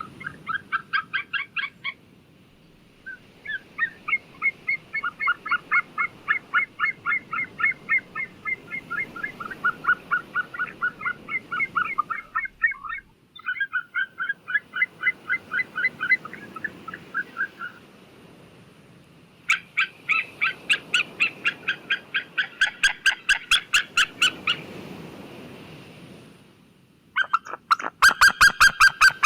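White-tailed eagle calling: bouts of rapid yelping notes, about four a second, in five runs broken by short pauses, over faint low background noise.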